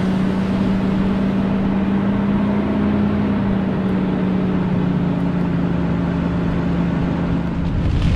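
Car running steadily: one low, even engine hum over a broad hiss.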